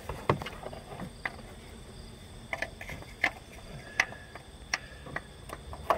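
Irregular light clicks and knocks as a new serpentine belt tensioner pulley assembly is handled and worked down into its mount in the engine bay, about ten scattered taps.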